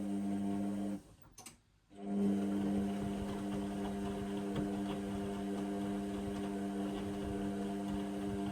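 Indesit washing machine running with a steady humming drone. It cuts out about a second in, a click sounds in the short gap, and the hum starts again about a second later and carries on evenly.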